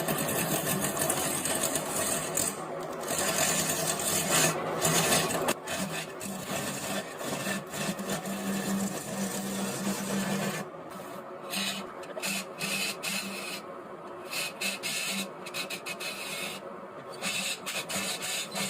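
Wood lathe running with a steady hum while a turning tool cuts the spinning wood of a bed leg with a continuous rasping hiss. About ten seconds in, the cutting breaks into short, repeated passes with gaps between them.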